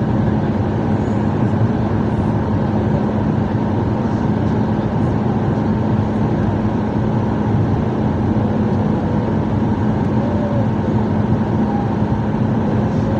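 Steady cabin drone of a Boeing 737 MAX airliner in flight, heard from inside the cabin: even engine and airflow noise with a constant low hum.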